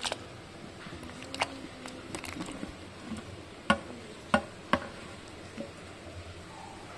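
Ash gourd cubes dropping one after another from a steel plate into a steel bowl of lime water: several short splashes and knocks, spaced irregularly.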